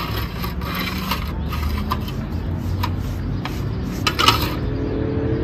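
Paintbrush strokes scraping and rubbing on the rough weathered wood of a planter box, with a few light clinks, the loudest about four seconds in, over a steady low rumble. A vehicle engine hum comes in near the end.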